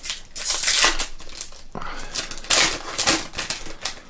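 A trading card pack wrapper crinkling and crackling as it is torn open and handled, in two rough bursts.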